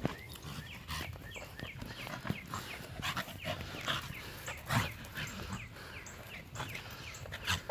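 Two dogs at rough play, a Doberman and a smaller tan dog, giving many short, high-pitched, falling yips and whines several times a second. Scuffles and sharp knocks from the jumping play mix in.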